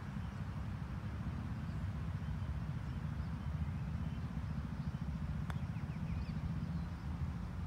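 Wind buffeting the microphone in a steady low rumble, with a single sharp click about five and a half seconds in as a putter strikes the golf ball from just off the green. A few faint bird chirps follow the click.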